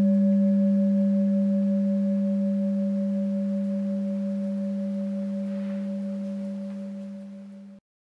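Tibetan singing bowl ringing on after being struck: a strong low hum with a higher tone above it that pulses slowly. The ring fades gradually, then cuts off abruptly near the end.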